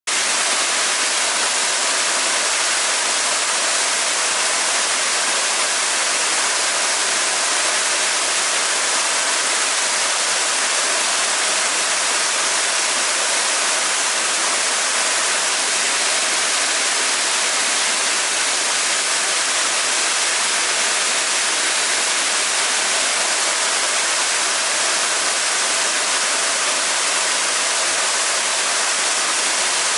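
Waterfall, heard close up from behind the falling curtain of water as it splashes onto rock: a steady, even rush, mostly hiss.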